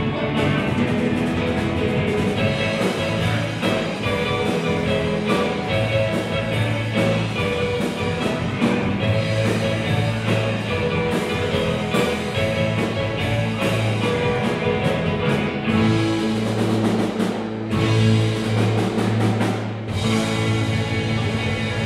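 Live rock-and-roll cover band playing: electric guitars, bass guitar, drum kit and keyboard, with a steady drum beat under sustained guitar and bass notes.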